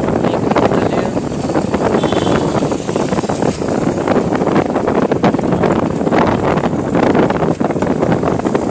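Wind buffeting the microphone of a handlebar-mounted camera on a moving bicycle: a steady, loud rushing noise, with road traffic under it.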